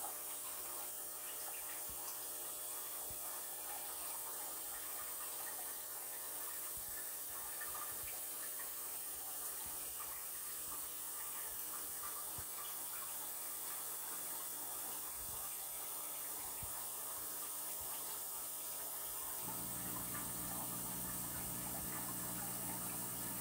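Faint steady trickle and hiss of aquarium water, with scattered light ticks. A low hum switches on near the end and keeps running.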